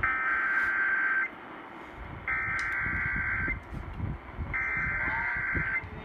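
Emergency Alert System SAME header: three harsh buzzing data bursts of about a second each, with short gaps between them, heard over a radio receiver. It is the digital code that opens an alert, here a severe thunderstorm warning.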